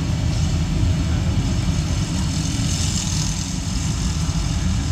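Steady low rumbling noise like street or traffic ambience, heard through a venue's loudspeakers from a film projected on a screen.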